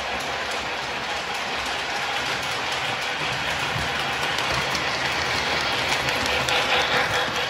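Lionel LionChief Hogwarts Express O-gauge toy train running on its track: a steady rumble of wheels on the rails with light clicking, growing somewhat louder toward the end.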